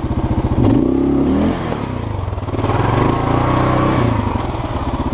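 Dual-sport motorcycle engine revving in bursts at low speed, on a slippery snow-covered trail. Its pitch rises and falls back about half a second in, then rises again for a longer stretch from about two and a half seconds.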